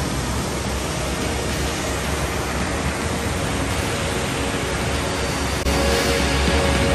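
Steady rush of Rupse Falls, a tall mountain waterfall crashing down onto rocks. A little before the end the sound steps up in level.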